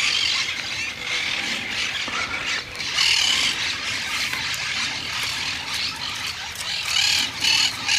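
Birds squawking: a continuous chorus of harsh, high calls, louder about three seconds in and again near the end.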